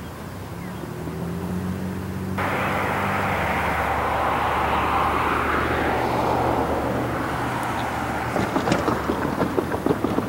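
Diesel engines of an approaching lashup of EMD locomotives, a steady low drone that rises slightly in pitch early on. A loud rushing hiss cuts in abruptly about two seconds in, and a run of sharp knocks comes near the end.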